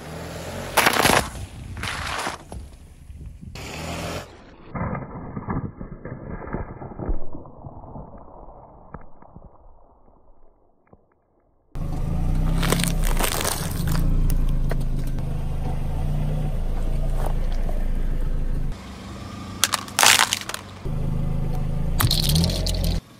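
A car tyre rolls over aluminium soda cans and crushes them with cracks and crunches. After a short quiet gap, the car runs close by with a steady low rumble as its tyre rolls over bags of Skittles, bursting them with sharp cracks.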